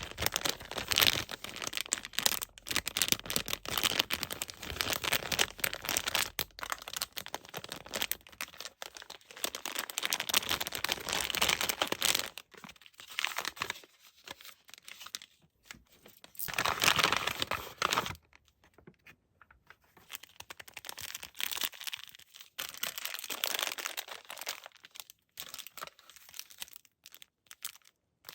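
Packaging being crinkled and torn open by hand, in crackly bursts with a few short pauses.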